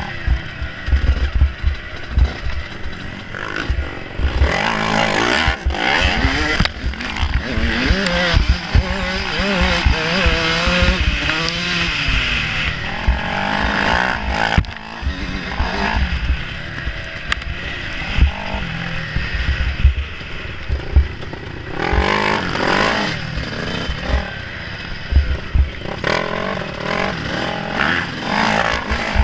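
Dirt bike engine heard from the bike itself, its pitch rising and falling as the rider opens and closes the throttle on rough ground. Frequent short low thumps run beneath it.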